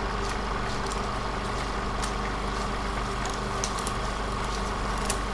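A steady electrical buzz and hiss, a static-noise effect, with a few faint crackles.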